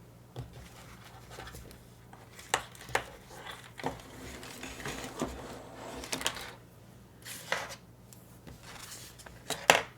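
Small parts and thin light wires being handled and tucked into a miniature kit's base: scattered light clicks and taps with soft rustling, one sharper click near the end.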